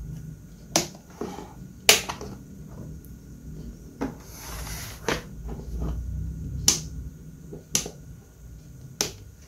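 Plastic toolbox case of a DIY battery power station clicking and knocking as it is handled, turned and its switches pressed. About seven sharp clicks come a second or so apart, with a short rustle near the middle.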